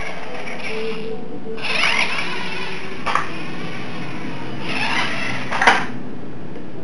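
Tiny electric motor and gears of a Mitsuwa 1/32 RC mini monster truck whining in two bursts as it speeds up, the pitch wavering, with a sharp knock about three seconds in and a louder one near the end.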